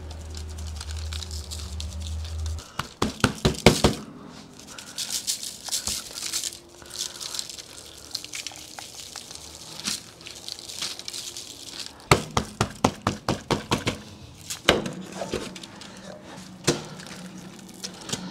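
Dry rub being shaken from a shaker jar over brisket in two runs of quick rattling shakes, a few seconds in and again past the middle, with scattered clicks of hands and foil on the sheet pan between. A low hum stops a few seconds in.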